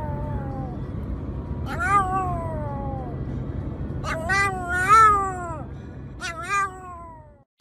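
Pomeranian howling in a car, about four drawn-out howls, each rising and then falling in pitch, the loudest about five seconds in. A steady low rumble from the car runs underneath, and everything cuts off near the end.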